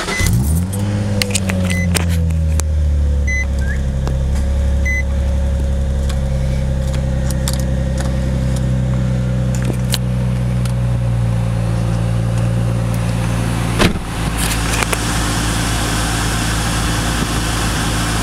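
Nissan 350Z V6 engine cranking and catching, rising briefly to a fast idle and then settling into a steady idle. A few short electronic beeps sound in the first five seconds, and a click about fourteen seconds in is followed by a steady airy hiss joining the idle.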